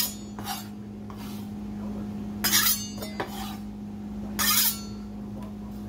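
Chef's knife scraping diced onion across a cutting board and into a stainless steel bowl: a handful of short scrapes a second or two apart, the loudest right at the start, with a small click in the middle.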